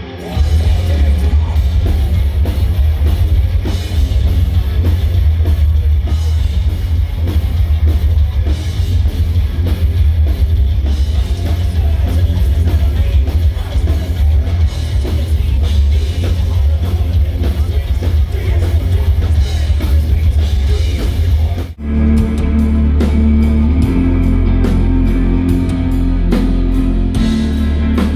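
A heavy metal band playing live on a festival stage: distorted electric guitars, bass and drum kit, with a singer. About 22 seconds in it cuts abruptly to a different band's live set with a steady drum beat.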